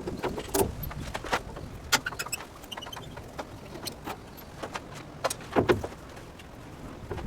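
Irregular clicks, knocks and light clatter, with a louder cluster of knocks about five and a half seconds in.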